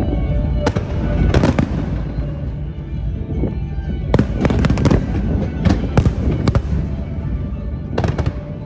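Aerial fireworks shells bursting in repeated volleys of sharp bangs and crackles, heard from a few hundred metres away, with the densest cluster of bursts from about four to six and a half seconds in.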